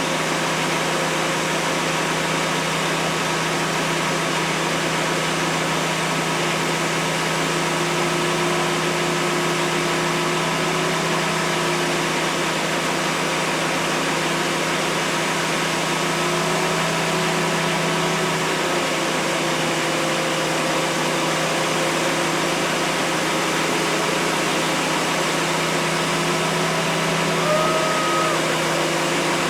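A steady engine running at idle, with a constant low hum under an even wash of noise. Faint wavering tones above it, likely distant voices, come and go.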